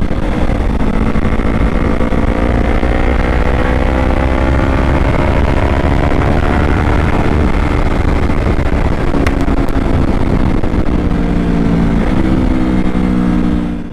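Yamaha R3's parallel-twin engine through an Akrapovic exhaust, running hard at high speed with its note slowly rising, over a steady low rumble; about twelve seconds in, the engine note shifts.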